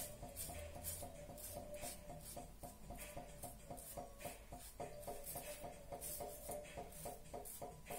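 Double-edge safety razor (Muhle Rocca with a Bluebird blade) scraping through lathered stubble on the chin in short strokes, about two or three a second.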